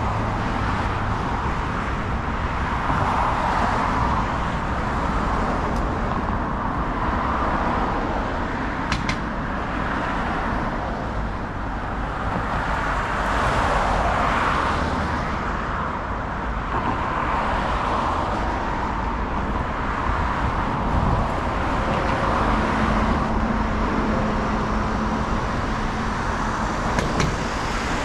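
Busy road traffic: cars passing in a steady stream, the tyre and engine noise swelling and fading every few seconds. A low steady hum joins for a few seconds toward the end.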